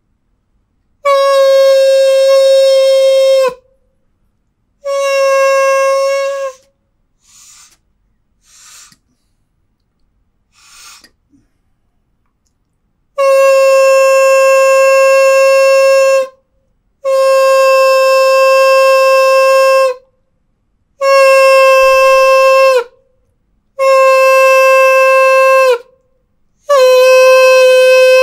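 Homemade balloon horn, a plastic pipe capped with a stretched balloon membrane and blown through a second pipe, sounding a series of steady horn notes at one pitch, seven blasts of about two to three seconds each. In a gap between the second and third blasts there are only a few faint breathy puffs, and several notes drop in pitch as they die away.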